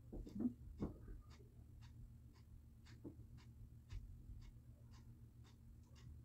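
Soft rustles and light knocks of makeup tools and a palette being handled, loudest about a second in, over a faint, even ticking about twice a second and a low steady hum.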